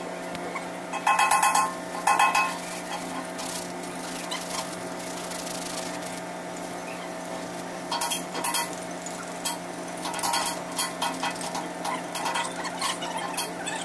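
Metal parts and hand tools clinking and scraping in short bursts, several times, while an air compressor back plate is cleaned by hand, over a steady hum.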